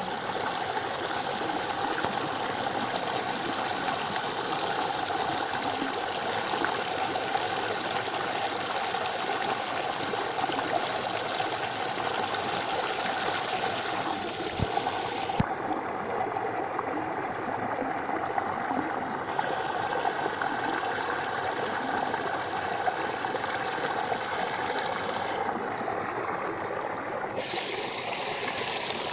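Water flowing steadily along a falaj irrigation channel, a continuous trickling stream.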